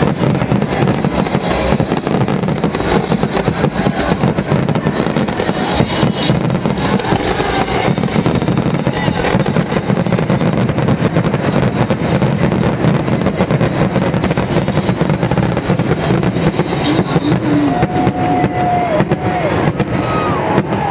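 Fireworks finale barrage: many aerial shells bursting in rapid succession, a dense, unbroken run of booms and crackle.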